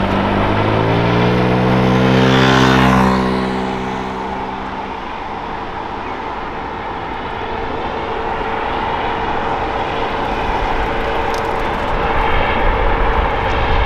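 Airbus H135 helicopter with twin Pratt & Whitney PW206B3 turboshafts flying away after take-off. The rotor and turbine sound swells to its loudest about three seconds in, then fades into a steady rush of noise.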